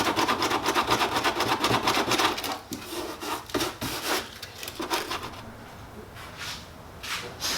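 Sandpaper scraped back and forth over a hardened ABS plastic patch, knocking down its rough spots: rapid strokes at first, then slower, scattered strokes that fade, with a couple more near the end.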